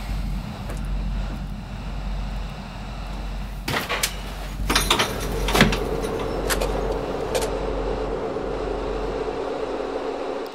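A door being unlatched and opened: a cluster of sharp clicks and knocks from about four to seven seconds in, over a steady low rumble. A steady low hum sets in after the first knocks.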